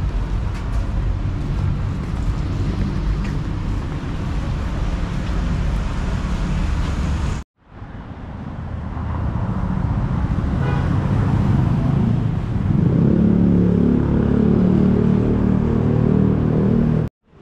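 Street traffic with vehicle engines running. The sound cuts out abruptly about seven seconds in, then returns and builds. In the second half a vehicle engine with a steady pitch comes close and grows louder, and the sound cuts out again just before the end.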